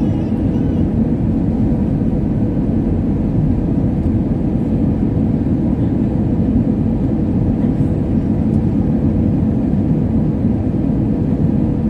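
Steady low rumble of airliner cabin noise on the approach to land: the wing-mounted turbofan engine and the rush of air heard from a window seat over the wing, with a faint steady hum under it.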